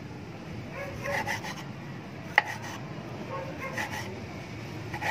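Cleaver cutting slices off a tomato held in the hand, soft rubbing and scraping, with one sharp click about two and a half seconds in.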